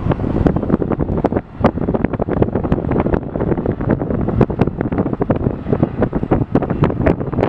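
Strong wind buffeting the microphone in rapid, irregular thumps, over the steady roar of a Boeing 757's jet engines as it lands.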